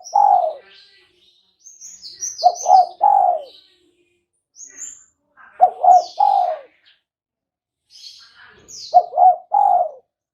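Spotted dove (tekukur) cooing: a three-note phrase of two short coos and a longer, slightly falling one, repeated about every three seconds. Small birds chirp faintly and higher in between.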